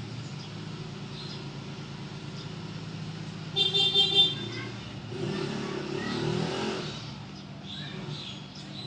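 Road traffic: a steady engine hum, a brief vehicle horn toot about three and a half seconds in, the loudest sound, then a vehicle's engine swelling and fading as it passes.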